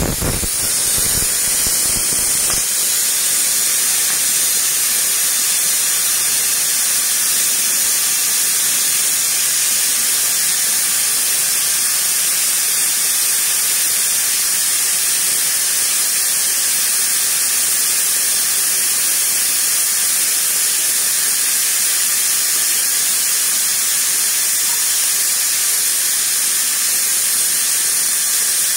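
Aluminium stovetop pressure cooker whistling, venting steam through its weight valve in a loud, steady hiss. This is the third whistle, the sign that the rice inside is cooked.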